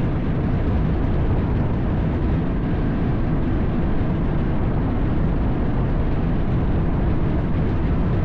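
Fireworks going off in a dense, continuous barrage, the bursts merging into one steady low rumble with no single bang standing out.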